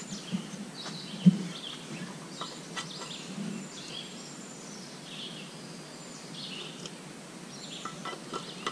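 Songbirds chirping and calling in woodland over a steady outdoor background, with one sharp thump about a second in.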